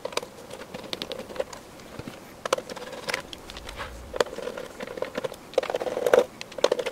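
Hand screwdriver backing screws out of an oscilloscope's sheet-metal chassis: scattered small clicks and scrapes of the bit on the screws and metal, coming more thickly near the end.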